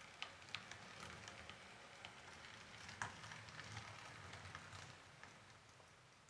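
H0-scale model of a PKP Cargo SU46 diesel locomotive running along the layout track and over turnouts: a quiet low hum with many small crackling clicks, one sharper click about three seconds in, easing off near the end.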